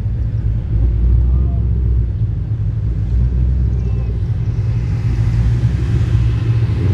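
Ford Shelby GT500 supercharged V8 engines rumbling steadily at low speed as the cars roll past in a line.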